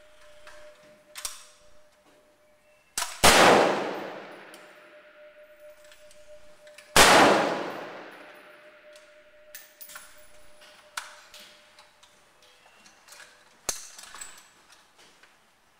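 Two rifle shots about four seconds apart, each with a long echoing decay off the walls of an indoor range, with lighter metallic clanks and clicks in between.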